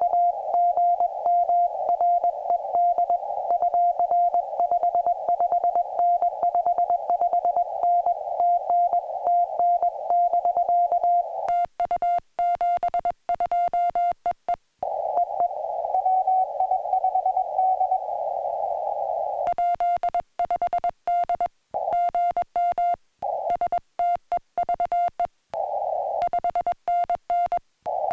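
Morse code (CW) tone from a portable ham radio, keyed rapidly on and off in dots and dashes, with a narrow band of receiver hiss around it. The keying stops about 15 seconds in, leaving a few seconds of hiss, then resumes.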